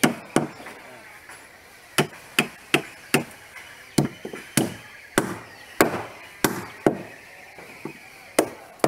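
Wooden mallet striking wood on a timber boat hull: about a dozen sharp, separate knocks in uneven runs, with short pauses between them.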